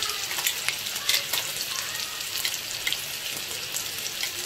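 Hot oil and ghee sizzling in a wok around freshly added ground masala paste and curry leaves, with frequent sharp crackling pops.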